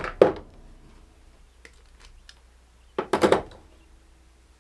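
Metal clinks of hand tools and small parts while the leads and old starter solenoid are taken off a mower: two sharp clinks at the start, then a quick cluster of clinks about three seconds in.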